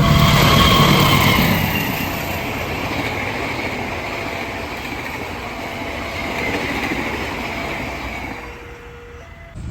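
Train passing at speed: a loud rush of wheels on rails that peaks in the first second or two with a faint falling whine, then settles into a steady rumble that fades near the end.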